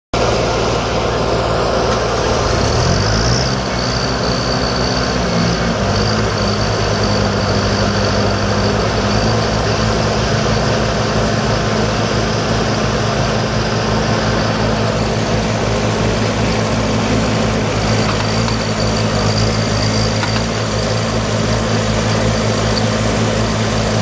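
Engine of a Bomford Turner Flailbot remote-controlled tracked bank mower running loudly, its pitch rising about three seconds in and then holding steady at the higher speed.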